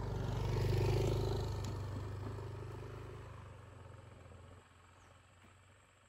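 Yamaha Aerox motor scooter engine running, loudest about a second in, then fading steadily over the next few seconds.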